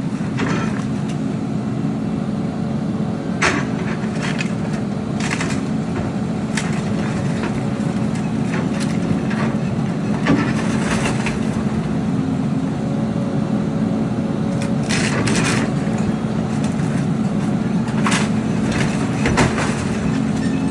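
Heavy construction machine's diesel engine running steadily, with scattered sharp cracks and knocks over it.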